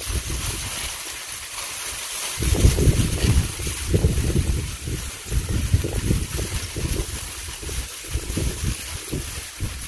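Wind buffeting the microphone in gusts, an irregular low rumble that swells and drops, over a steady high hiss.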